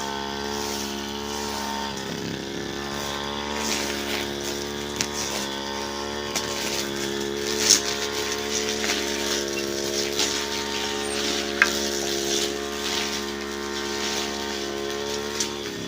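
Brush cutter engine running steadily at high speed, with a few sharp cracks over it.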